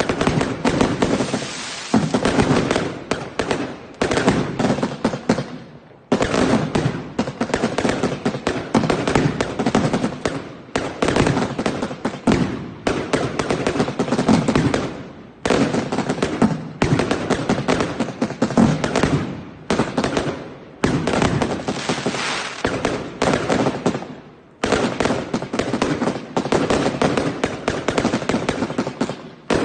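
Fireworks going off: dense, rapid bangs and crackling in runs of a few seconds, each cut by a short break before the next run starts.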